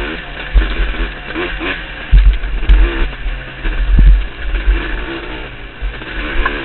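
Yamaha YZ125 two-stroke dirt bike engine revving up and down as it is ridden hard along a rough trail, heard from a helmet-mounted camera. Repeated heavy low thumps come from wind and jolts on the camera.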